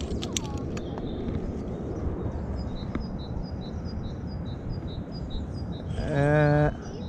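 Metal carabiners clicking as they are clipped onto a steel cable, against a steady outdoor rustle, with a bird repeating a high chirp about twice a second. Near the end comes a loud, short, held and wavering voice sound.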